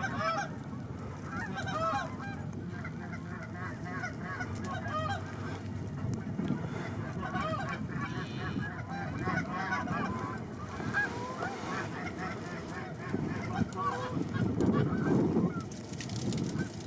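A flock of Canada geese honking, many short calls overlapping, thinning out near the end, with wind noise on the microphone underneath.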